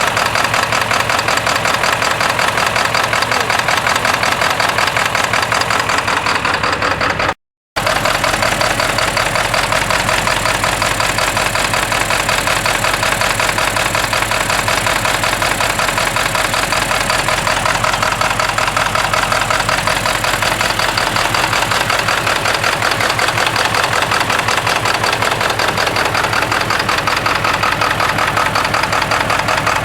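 Ford 7.3L Powerstroke V8 turbo diesel idling with a steady, rapid diesel clatter, running not long after a cold start; the owner blames its rough running on bad injectors. The sound cuts out completely for a split second about seven and a half seconds in.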